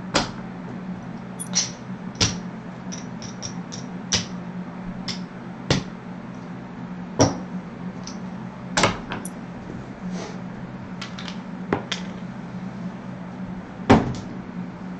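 Casino chips clacking as they are handled and stacked into the rack: a dozen or so irregular sharp clicks over a steady low hum.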